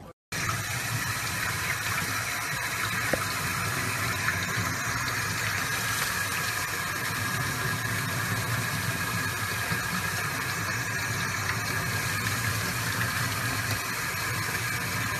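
Sink faucet running steadily, the water pouring over a puppy being rinsed in the cupped hands beneath it.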